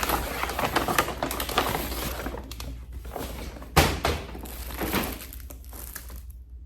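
Takeaway food packaging being opened and handled: steady rustling and crinkling with many small clicks, and a sharp knock about four seconds in.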